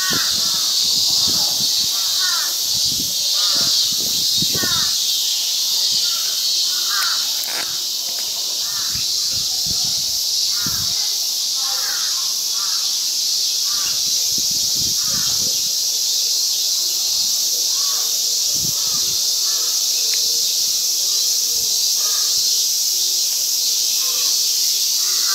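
Steady high buzzing of cicadas in summer, with crows cawing repeatedly over it, the caws thinning out in the last third.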